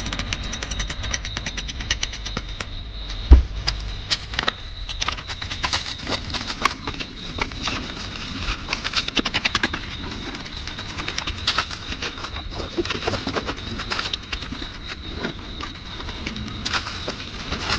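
Rustling and rapid clicking from a cabin tent's fabric and door panel being handled, with footsteps in dry fallen leaves. There is one sharp thump about three seconds in, and a thin steady high tone runs underneath.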